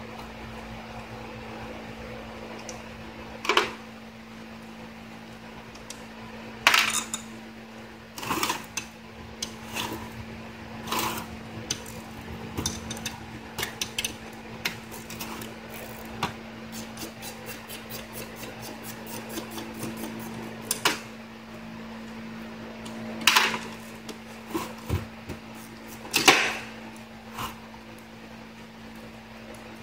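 Metal parts and hand tools clinking and knocking while an Autochlor motor is worked on with bolts, with a quick even run of clicks about halfway through, over a steady low hum.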